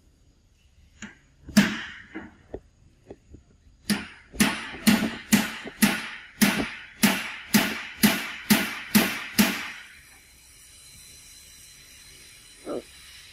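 Sharp knocking from an unseen source: a few scattered knocks, then about a dozen strong blows in a steady rhythm of roughly two a second, which stop abruptly.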